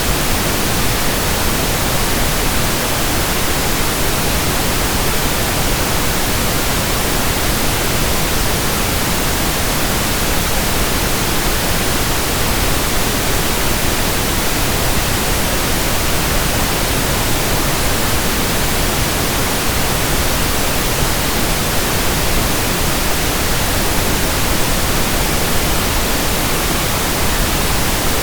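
Steady pink noise: an even, unbroken hiss with a soft, full low end, unchanging throughout.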